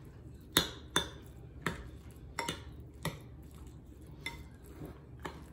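Metal fork stirring egg salad in a glass bowl, clinking against the glass in sharp, irregular ticks about once or twice a second, with the soft squish of chopped egg and mayonnaise being mixed.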